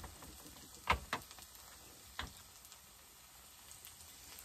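A few sharp clicks from a plastic bottle cap being worked open, about a second in and again a little past two seconds, over the faint sizzle of cauliflower rice frying in a pan.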